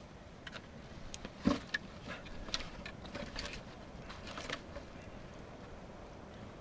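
Pieces of dry deadwood knocking together as they are laid on a campfire: one heavy thump about one and a half seconds in, then a run of lighter clicks and snaps that dies away near the end.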